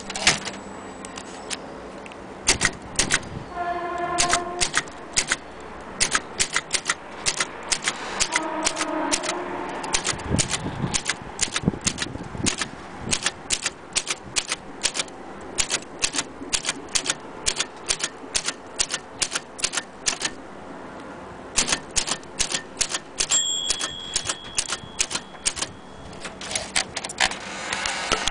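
Olympia SM3 Deluxe manual typewriter being typed on: a steady run of sharp key strikes, two to three a second, with a short pause about two-thirds of the way through.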